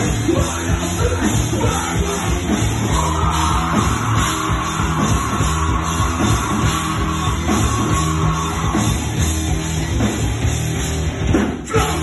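A heavy metal band playing live and loud in the room: distorted electric guitars, bass and pounding drums, with a vocalist shouting into the mic. A long high note is held through the middle, and there is a sharp accent near the end.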